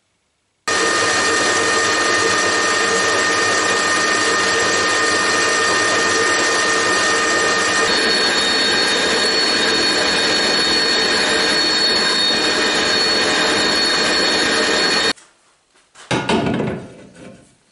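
Metal lathe running while turning down a metal shaft: a loud, steady machine noise with a high whine, whose pitch changes about halfway through. It cuts off suddenly near the end, followed by a brief knock of metal parts being handled on a bench.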